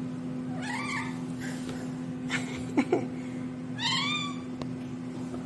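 Cat meowing twice: short calls that rise and fall in pitch, about a second in and again near four seconds in, with a brief sharp sound between them. A steady low hum runs underneath.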